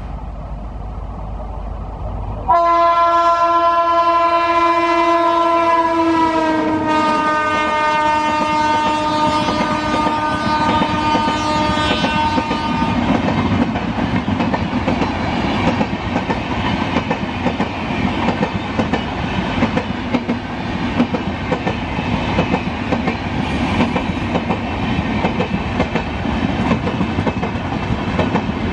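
WAP-7 electric locomotive sounding one long horn blast of about ten seconds that drops slightly in pitch partway through, then the steady rumble and clickety-clack of its passenger coaches rolling past as the train slows for a halt.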